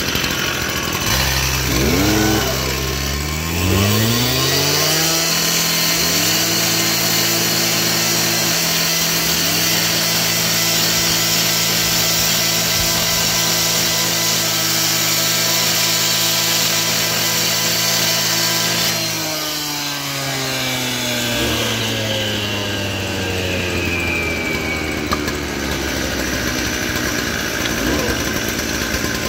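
Stihl TS 420 two-stroke cut-off saw idling, then revving up over the first few seconds and held at full speed for about fifteen seconds while its blade cuts through patio pavers. It then winds back down to idle.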